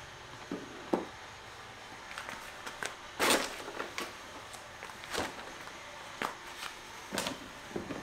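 Handling noises on a work surface: scattered light clicks and taps as small tools and parts are picked up and set down. There is a louder, short scuffing rustle about three seconds in.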